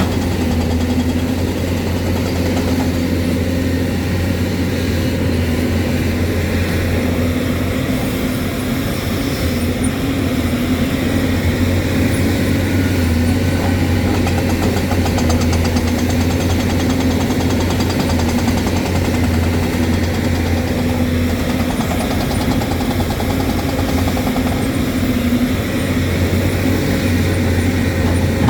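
Hyundai excavator's diesel engine running steadily, its pitch wavering slightly up and down.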